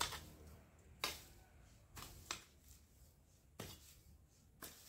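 Long-handled garden tool chopping and scraping through dry grass and soil, with about six short strokes roughly a second apart.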